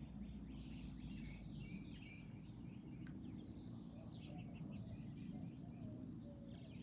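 Several small birds chirping and calling in quick, overlapping notes, over a steady low rumble of outdoor background noise.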